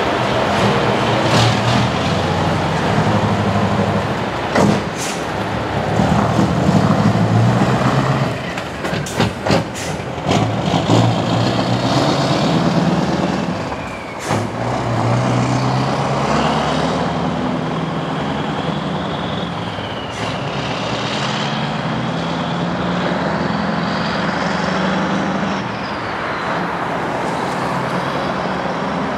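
Scania diesel truck tractor unit pulling away and accelerating through the gears, the engine note rising and dropping back with each shift several times. A few sharp clicks come about five seconds in and again around ten seconds.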